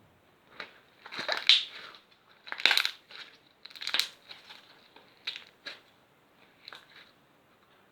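Slime squeezed and worked by hand, making three crackling, popping squishes about a second apart, then a few shorter single pops.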